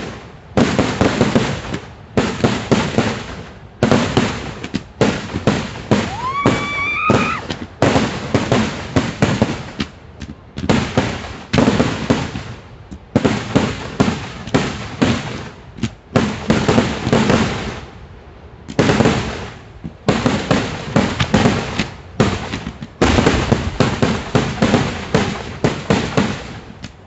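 Fireworks and firecrackers going off in rapid, dense volleys of bangs, in clusters one to two seconds long with short lulls between. A rising whistle sounds about six seconds in.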